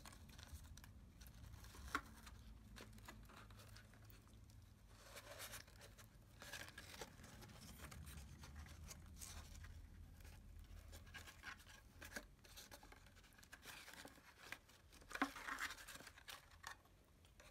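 Faint rustling of satin ribbon against cardstock as a bow is tied around a paper basket handle, with a light tick about two seconds in and a short burst of handling noise near the end; otherwise near silence.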